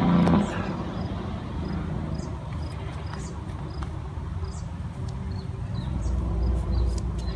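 Outdoor background of distant road traffic, a low steady rumble that swells a little about six seconds in, with faint short high chirps scattered over it.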